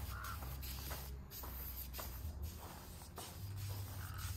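Aerosol spray-paint can hissing in short bursts as paint is sprayed onto a sheet-metal engine tin.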